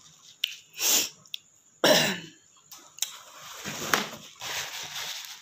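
A woman coughs and breathes out hard, reacting to the burn of very spicy hot chicken noodles: a sharp breath about a second in, then a louder cough. Rustling and handling noise follows in the second half.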